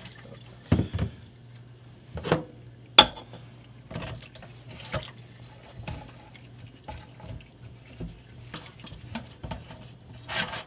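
Metal clanks and clicks from a dental pressure pot being handled in a stainless steel sink as its T-handle lid is screwed down, with a sharp clack about three seconds in and lighter clicks after. A low steady hum runs underneath.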